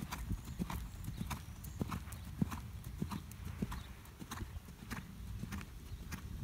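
Hoofbeats of a ridden horse trotting on sand arena footing, a regular beat of soft strikes about every half second.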